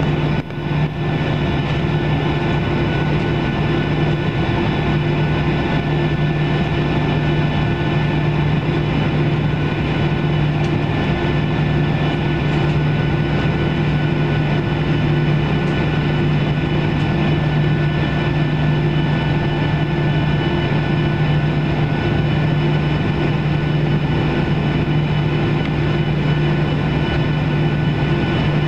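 Boeing 737-700's CFM56-7B engines at low taxi power, heard from inside the cabin: a steady drone with a low hum that holds level throughout.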